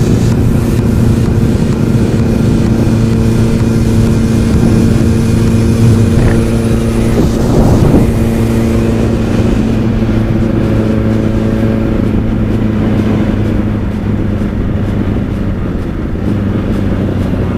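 Motorcycle engine running at a steady cruising speed, with wind rushing over the microphone. The wind hiss eases about halfway through.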